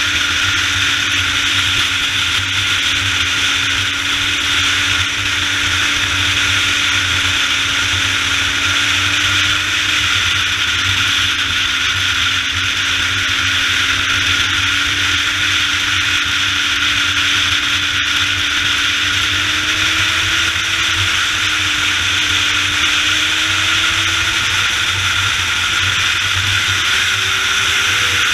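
Wind rushing over the microphone of a Suzuki GSX-R sportbike ridden at road speed, with the bike's inline-four engine running steadily underneath, its pitch rising a little about two-thirds of the way through and again near the end.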